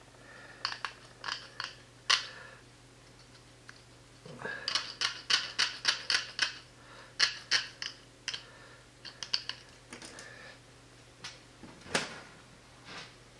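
Hand cutters snipping through stainless steel wire mesh screening: quick runs of sharp clicks as the wires are cut, in several uneven bursts.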